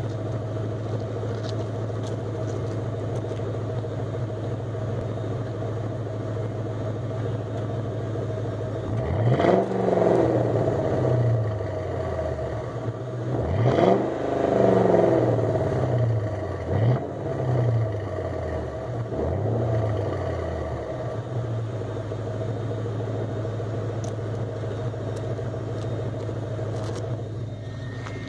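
Exhaust of a 1996 Lincoln Town Car's 4.6-litre V8 through single-chamber mufflers, heard at the tailpipe: a steady idle, then four quick revs in the middle, the first two the hardest, each falling back before it settles to idle again.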